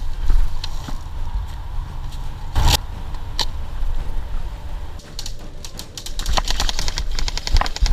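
Airsoft electric guns firing in fast full-auto bursts in the last few seconds, a rapid even run of sharp clicks. Before that, a steady low rumble with two single sharp knocks.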